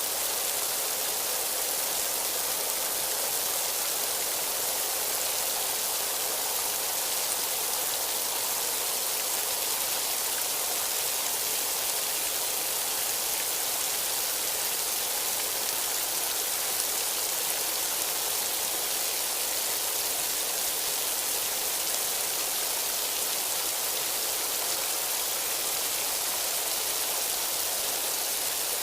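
Steady rain falling, an even hiss with no let-up or single loud drops.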